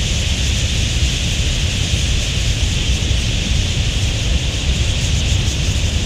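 A huge flock of wild budgerigars in flight: thousands of birds' chirruping merges into one steady, dense, high wash of chatter, with a low rumble beneath it.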